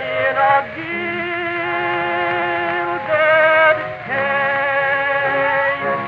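Early acoustic recording of a male tenor singing the closing line of a sentimental ballad over instrumental accompaniment, ending on long held notes. The recording is narrow and dull, with no high end.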